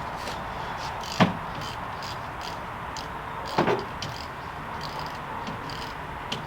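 Two sharp knocks, about two and a half seconds apart, over steady background noise, from hand work on a car's brake assembly. The first knock is the louder, and the second rings briefly.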